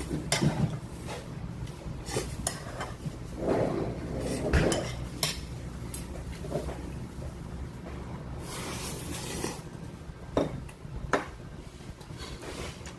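Eating utensils clinking against a bowl and dishes during a meal of ramen, with several separate sharp clinks.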